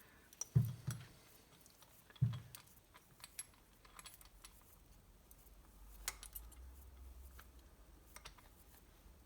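Light metallic clicks and ticks of piston, ring and pin parts being handled, with two soft dull knocks in the first few seconds.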